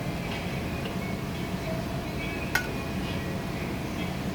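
A utensil clinking once against a serving dish about two and a half seconds in, with a short ring, over steady room noise.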